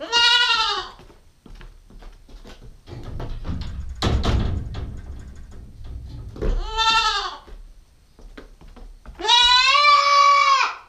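Nubian goat kid bleating three times: two short calls that rise and fall in pitch, at the start and about two-thirds of the way in, then a longer call held steady near the end. Between the first two calls, a stretch of knocking and rustling.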